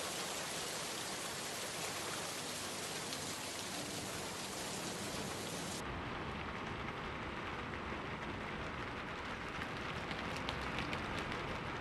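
Steady rain falling. About six seconds in it switches to a different recording of rain striking an umbrella, duller and closer, with distinct drops hitting the fabric toward the end.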